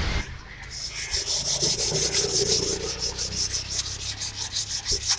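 Sandpaper scrubbed quickly back and forth over the deck face of a Maruti Suzuki Swift Dzire cylinder block, rhythmic scratchy strokes about five a second, starting just under a second in. The block face is being cleaned of stuck head-gasket ring residue so that a new head gasket seats perfectly.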